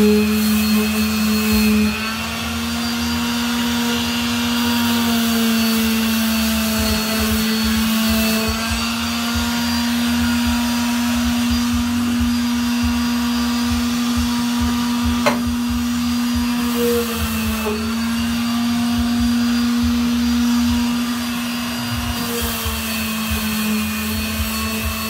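Handheld electric sanding tool running steadily on a rusty steel step rail, its motor whine dipping briefly in pitch a few times.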